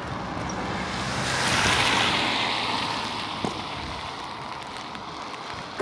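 A car passing on the rain-wet road, its tyres hissing on the wet asphalt: the hiss swells to a peak about two seconds in, then slowly fades.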